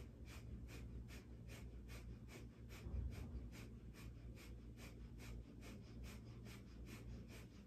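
Breath of fire, the Kundalini yoga breath: quick, forceful, rhythmic exhalations through the nose at about three a second, held steadily in cow pose.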